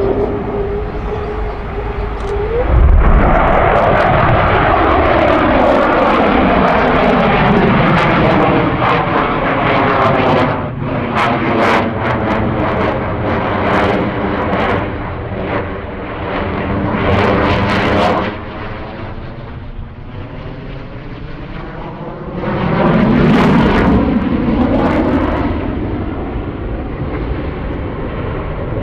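F-15 Eagle fighter jet's twin turbofan engines passing during a flying display, the noise sweeping and falling in pitch as it goes by. It is loudest about three seconds in and again around twenty-three seconds, with sharp crackling in between.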